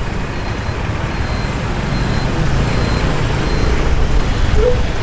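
Steady road-traffic noise in a jam: a dense low rumble of vehicle engines, with a brief short tone near the end.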